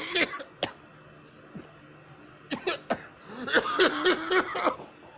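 A person coughing in fits: a cough at the start, single sharp coughs about half a second and two and a half seconds in, then a run of about five quick coughs near the end.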